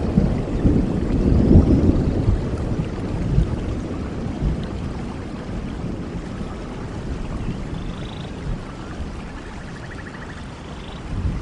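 Steady rain falling in a forest, with the rumble of a thunderclap dying away over the first few seconds.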